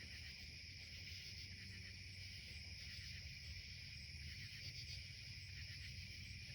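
Steady chorus of crickets trilling, with a faint low hum beneath.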